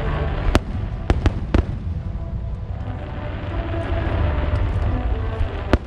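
Display fireworks going off: sharp cracks about half a second in, three more in quick succession soon after, and another cluster near the end, over a continuous low rumble of distant shell bursts.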